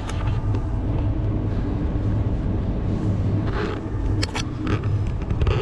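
Steady low rumble of a vehicle, with a couple of sharp clicks a little over four seconds in.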